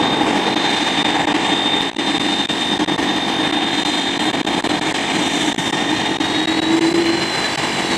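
Airbus A330-300 jet engines running at low taxi power: a steady jet whine over a broad rush, with a thin high tone that rises slightly near the end.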